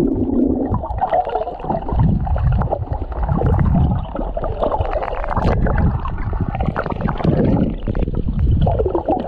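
Muffled gurgling and sloshing of water, picked up by a camera held underwater as a swimmer moves along.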